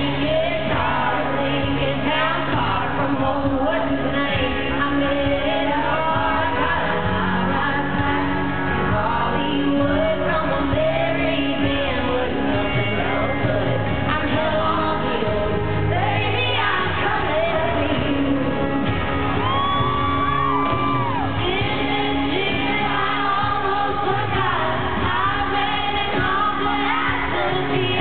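Live country band performance with women singing lead and harmony vocals, heard through the arena's PA from the audience.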